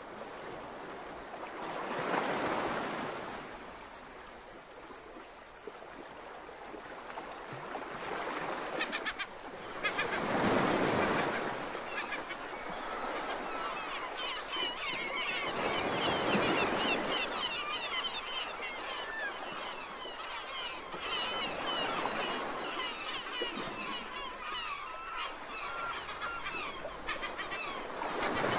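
Gulls calling over and over from about twelve seconds in, a chorus of short rising cries, over a rushing sea-and-air noise that swells up every few seconds.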